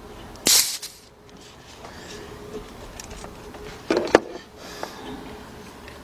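Engine compression tester's gauge being bled: a short hiss of released air about half a second in, as the pressure held from the cylinder test is let off. A few sharp clicks and knocks of the tester's hose and fitting being handled about four seconds in.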